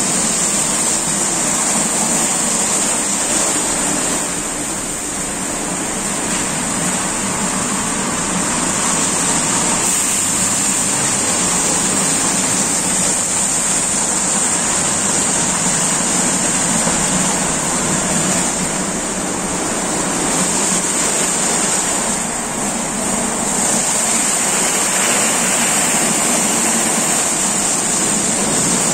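Automatic rollover car wash gantry at work: large rotating brushes spinning against the car amid water spray, making a loud, steady rushing hiss.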